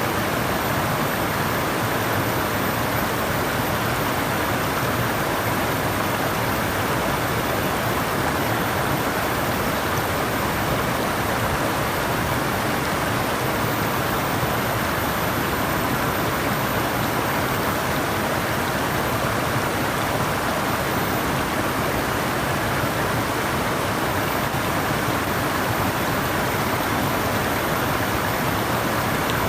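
Flowing water running steadily, a continuous even rush with no breaks.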